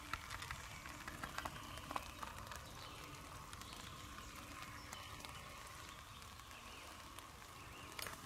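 Faint steady hiss of a quiet forest at night, with scattered soft clicks and ticks in the first two seconds and a few more near the end.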